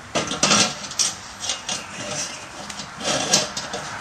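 Irregular clinks, knocks and scrapes of stainless steel exhaust pipe parts being handled and fitted together, loudest about half a second in and again just past three seconds.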